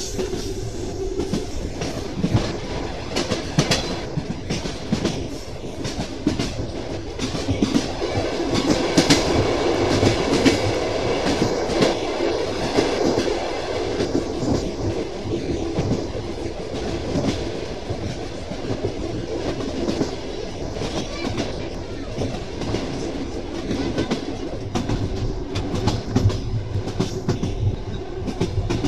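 Train wheels clicking over rail joints under a moving railway carriage, a continuous clickety-clack over the rolling rumble, louder and busier from about eight to fourteen seconds in.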